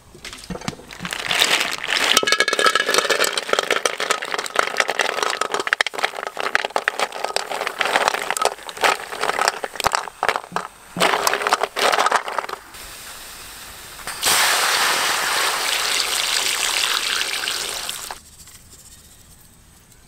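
Apple snails sizzling in a hot wok, with many sharp clicks of the shells knocking against each other and the metal. The hiss breaks off about two-thirds through, then a second steady hiss starts and stops suddenly.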